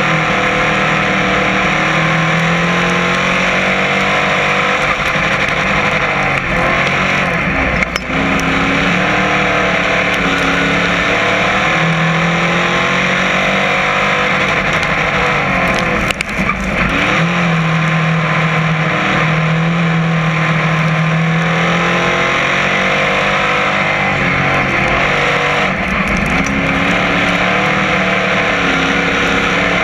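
Crate modified race car's V8 engine at racing speed, heard from inside the cockpit: loud and continuous, its pitch dropping as the driver lifts for each turn and climbing again down the straights, about every eight to nine seconds.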